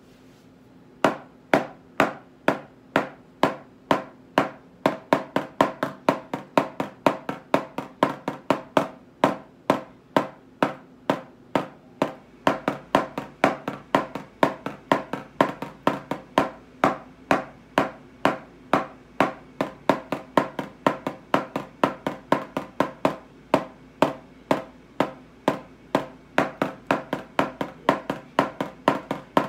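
Wooden drumsticks striking a rubber drum practice pad, playing a steady pattern of sharp taps. It starts about a second in with even strokes about two a second, then moves into faster groupings.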